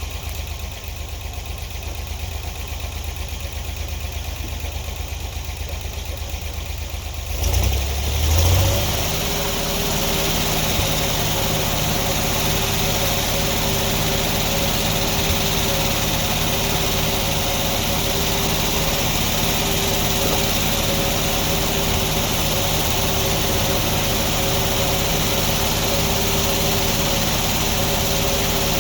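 Sawmill engine idling low, then about seven and a half seconds in it speeds up and runs steadily under load, with a hiss over the top as the saw cuts through the log.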